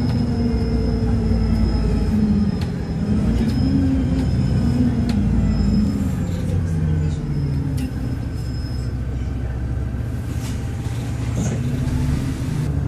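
Inside a moving VDL double-decker bus: the diesel engine and Voith automatic gearbox running, their low note rising and falling as the bus changes speed. A thin high whine sits over the first part, with scattered light rattles.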